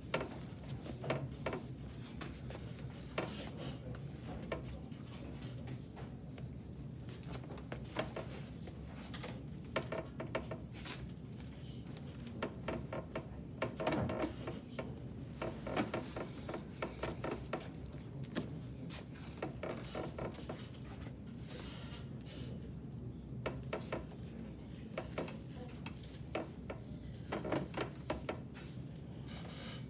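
Athletic tape being pulled off the roll and smoothed around an ankle by hand: short ripping and rubbing sounds that come and go irregularly.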